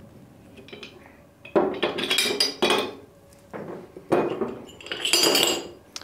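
Metal clinking and scraping as 3-inch cam-and-groove (camlock) couplings are unlocked by hand: the cam levers are swung open and the male adapters pulled out of the female couplings. The sound comes in two bursts, about a second apart, one for each coupling.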